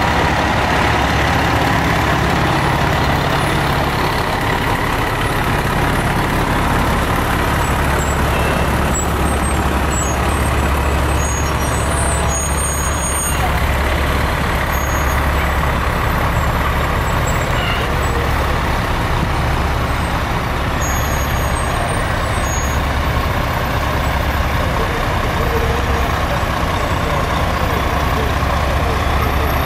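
Diesel engines of Pierce fire trucks, a rescue squad truck and then a tower ladder, running steadily as they roll slowly past at walking pace.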